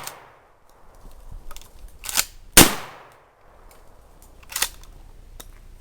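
A 12-gauge Stevens Model 320 pump-action shotgun firing one loud shot about two and a half seconds in, as the echo of the previous shot dies away at the start. A sharp clack comes just before the shot and another, quieter one about two seconds after it, with faint clicks between.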